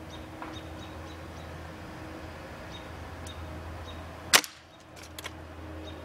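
A single sharp gunshot about four seconds in, followed a second later by two faint clicks, over a steady low hum and faint high bird chirps.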